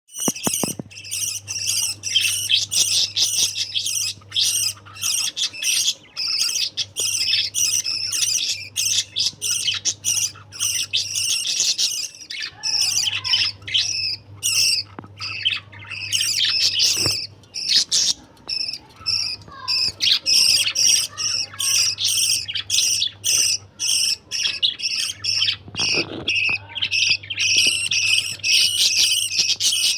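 Budgerigars chattering and chirping nonstop, a dense stream of rapid high notes, with a low steady hum underneath that comes and goes.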